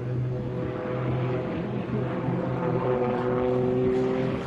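Propeller-driven aerobatic airplane flying overhead, its piston engine running with a steady tone.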